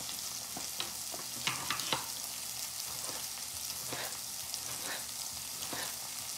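Garlic and bell peppers sizzling in a frying pan, a steady hiss, with irregular knocks of a knife cutting tomatoes on a wooden cutting board, a quick run of cuts about one and a half to two seconds in.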